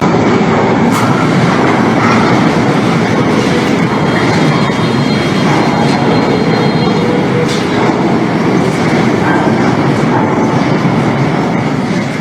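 Loud, continuous rumbling with scattered rattles and clicks, the sound of ground and structures shaking in an earthquake.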